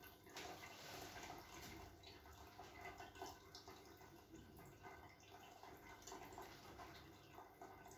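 Near silence: faint room tone with a few tiny ticks.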